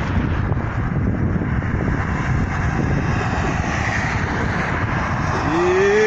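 Steady roadside traffic noise from the highway, a continuous low rumble without a break. About five and a half seconds in, a short rising tone sounds over it.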